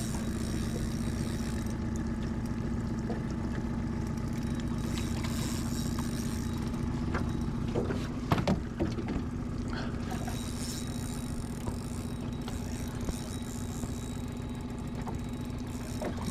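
Small outboard motor idling steadily in neutral, with a few light knocks about halfway through.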